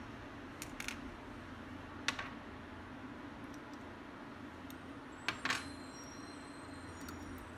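Small metallic clicks and taps from handling a Maico DC pocket voltmeter's metal case and its small parts during disassembly: a few scattered clicks, the loudest about two seconds in and a pair just past five seconds, over a steady low hum.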